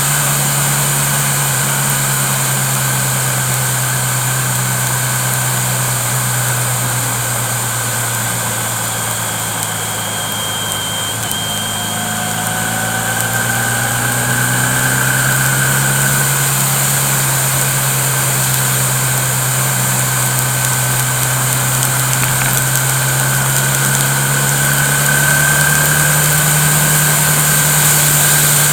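Vehicle engine running steadily with road noise: a constant low hum that dips slightly and comes back around the middle.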